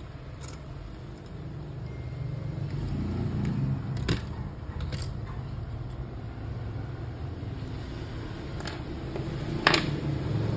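Several sharp metal clicks, about half a dozen spaced irregularly and loudest about four seconds in and near the end, as pliers work at the spring and metal frame of a copier fuser unit. A steady low rumble sits underneath.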